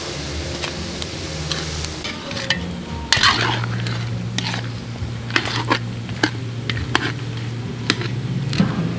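Goat kaldereta sizzling in a pot while it is stirred, with a spoon clinking and scraping against the pot many times.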